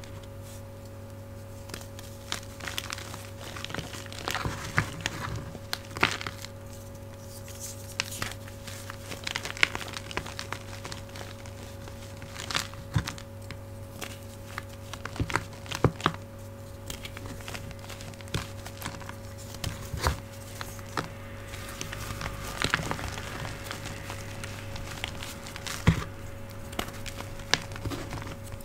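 Fingers crushing and crumbling soft pieces of reformed gym chalk, a run of crisp crackles and crunches with a few sharper snaps. A steady hum from an old refrigerator runs underneath.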